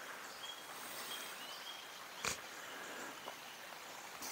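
Shallow river flowing over stones, a faint steady hiss, with a few short high bird calls in the first two seconds and a single sharp click about two seconds in.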